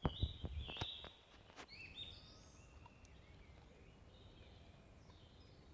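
Small woodland songbirds singing short, slurred phrases, busiest in the first two seconds and then only faint calls near the end. A few sharp knocks with some low rumble come in the first second and a half.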